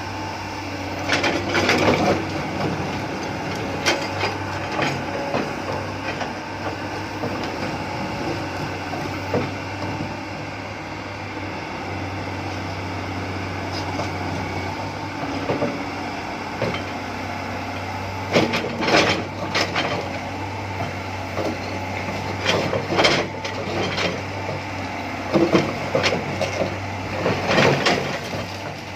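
Hydraulic excavator with its diesel engine running steadily, and irregular knocks and cracks as the bucket works through material, bunched in spells about two seconds in and again over the last ten seconds.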